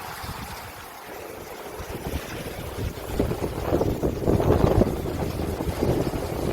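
Wind blowing over the sea in gusts, buffeting the microphone with a low rumble; it eases about a second in and builds again from about three seconds.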